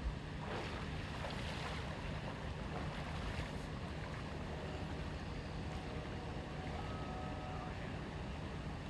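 A vehicle engine running steadily at idle: an even low hum with some wind and water-like noise over it.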